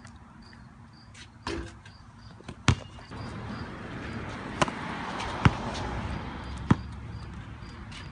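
Basketball bouncing on pavement: about five single bounces, roughly a second apart, over a background hiss that swells in the middle.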